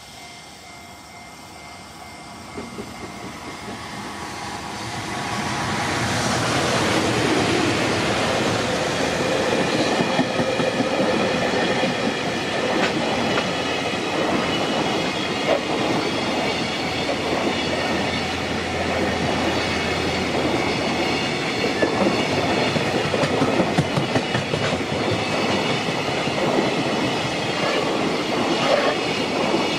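Freight train hauled by an EF210 electric locomotive approaching and passing over a level crossing. The rolling noise builds over the first several seconds, then the container wagons run past steadily. The crossing's electronic warning bell rings throughout.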